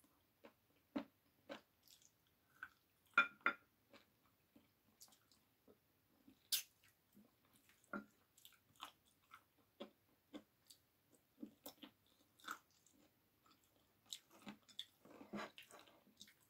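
A person chewing chicken adobo wings and picking the meat off the bones by hand: faint, irregular short clicks of chewing and fingers on the bones, one sharper click partway through.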